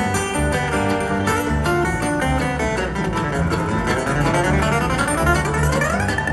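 Bluegrass band playing an instrumental passage live: acoustic guitar, banjo and upright bass driving a steady beat. A sweeping sound rises in pitch through the band over the last couple of seconds.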